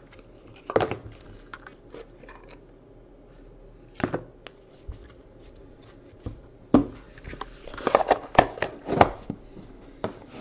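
Hands handling a cardboard trading-card box and a stack of cards: light scrapes and clicks, with a few louder knocks, then a cluster of sharper taps and knocks in the last few seconds as the stack is handled and set down on the box.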